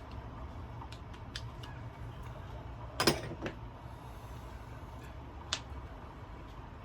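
Small chainsaw oil-pump parts being handled: a few light clicks, a clatter of several quick knocks about three seconds in, and one more sharp click near the end, over a steady low hum.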